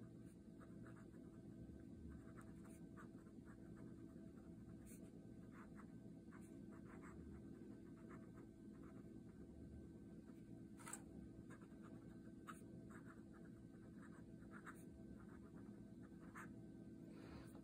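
Faint scratching of a fine steel fountain-pen nib writing on cheap lined ledger paper: a run of short, irregular strokes, with one slightly sharper tick about eleven seconds in.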